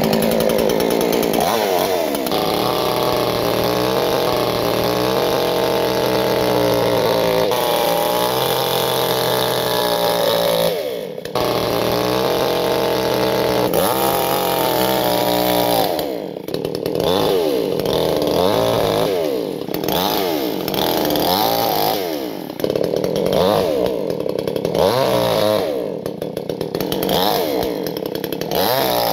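iBELL petrol chainsaw's two-stroke engine running steadily at speed, with a brief dip about eleven seconds in. From about sixteen seconds it is revved up and down over and over, roughly once a second, as the chain cuts through a large fish pinned on a log.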